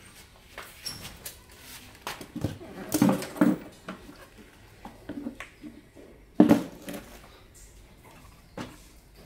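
Clatter and knocks of hand tools and light parts being handled on a wooden workbench, loudest about three seconds in and again at about six and a half seconds.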